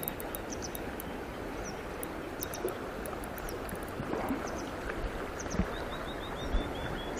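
Steady rush of a shallow mountain stream running over stones, with faint high ticks and a short run of small high chirps near the end.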